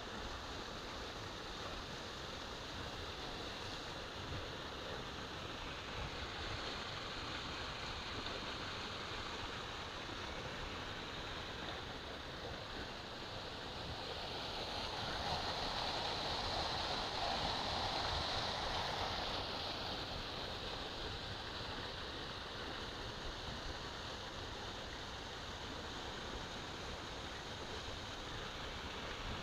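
Steady rush of flowing stream water, swelling a little in the middle before settling back.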